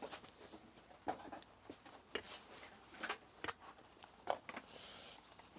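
Faint, scattered clicks and light metallic knocks of tools and parts on a VW 16v cylinder head as the camshaft and its bearing caps are worked loose, with a soft rustle near the end.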